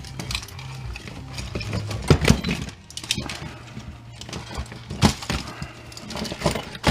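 Clinks and knocks of loose metal and plastic stove parts being handled and sorted during scrapping, with sharper knocks about two seconds in, around five seconds and near the end.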